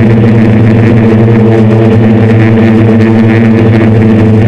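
Hexacopter's six brushless motors and 10-inch propellers in flight, a loud steady hum at one unchanging pitch, picked up close by the onboard camera's microphone.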